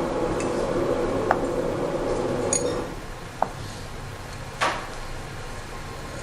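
Steel cylinder-head parts being handled on a workbench: a few separate sharp metallic clinks, spread out. A steady hum runs underneath and stops about three seconds in.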